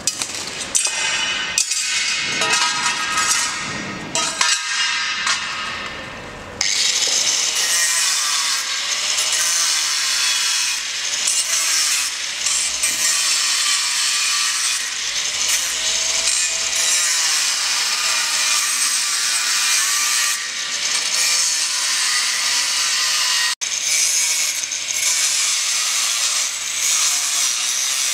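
Angle grinder with a thin cutting disc slicing slots into a steel mounting plate: a steady, loud, high grinding hiss that runs from about six seconds in, broken only by a split-second gap near the end. Before it, a few seconds of uneven tool-on-metal noise.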